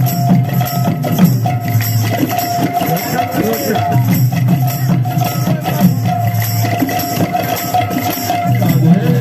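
Kirtan band music from Odisha: hand-played barrel drums (mridanga) beating a busy, steady rhythm with bright jingling metal percussion and a held tone over it.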